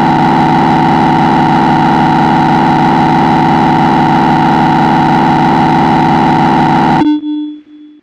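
Emergency Alert System attention signal: a loud, steady two-tone alarm with many overtones, cutting off suddenly about seven seconds in, the tone that comes before an emergency alert message is read.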